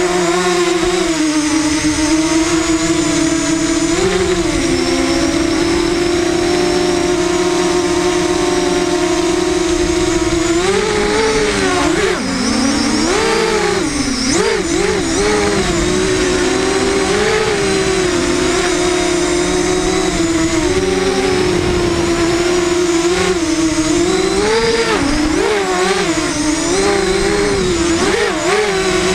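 FPV quadcopter's electric motors and propellers whining, heard through its onboard camera: a steady hum whose pitch rises and falls quickly with the throttle, most of all around the middle and near the end.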